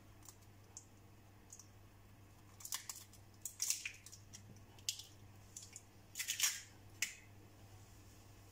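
A few short, crisp cracks and clicks as an eggshell is pulled apart by hand over a bowl, over a faint steady low hum.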